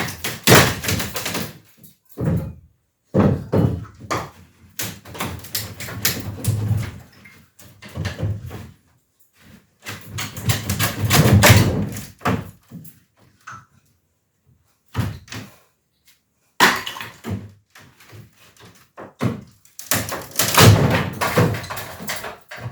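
An old water- and bug-damaged ceiling being torn down: repeated thuds, knocks and crashes of material being pried off and falling, in bursts separated by short pauses.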